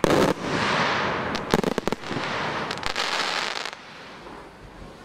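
Daytime aerial fireworks: a sharp bang right at the start, then a dense crackling hiss of many small bursts with scattered louder pops, dying away after about three and a half seconds.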